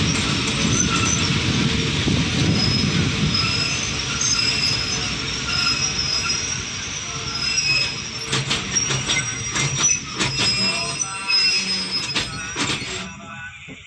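Express passenger train heard from aboard, rolling slowly into a station passing loop. Its wheels squeal in high thin tones, with sharp clicks over the rail joints and points, as it slows to a stop near the end.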